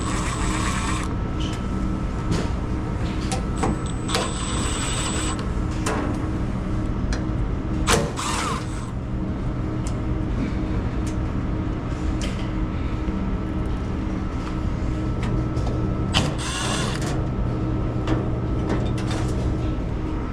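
Steady machinery hum with a low drone and a faint high whine, broken by a few short clicks and rustling or scraping sounds of handling, the loudest about a third of the way in and again past the three-quarter mark.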